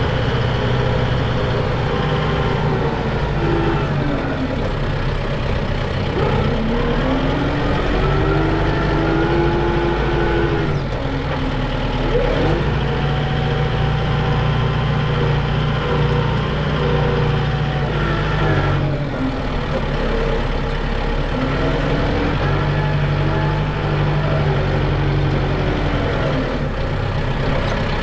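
Farm tractor engine running steadily, with a whine above it that rises and falls in pitch every few seconds as the load or revs change.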